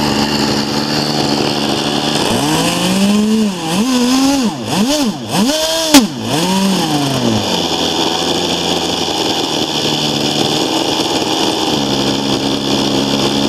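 Webra 61 two-stroke glow engine with a tuned pipe, driving a RamTec ducted fan, running fast with a steady scream. Between about two and seven seconds in its speed dips and rises several times, with a sharp click about six seconds in, then it settles back to a steady high run.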